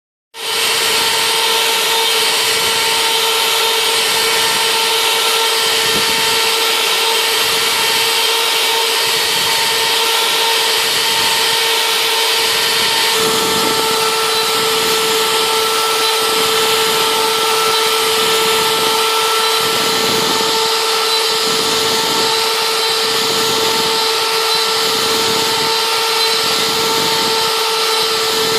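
CNC router spindle running with a steady high whine while milling foam. About 13 seconds in the pitch drops slightly and an uneven, rougher cutting noise joins it.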